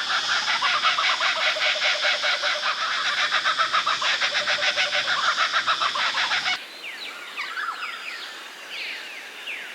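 Willie wagtail giving a loud, rapid, harsh chatter of many notes a second. It cuts off abruptly about two-thirds of the way in, giving way to quieter, short downslurred chirps of small finches.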